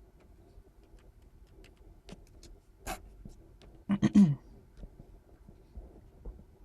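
Scattered faint computer mouse clicks, with a short burst of noise about three seconds in and a brief murmured vocal sound from the person, the loudest thing, about a second later.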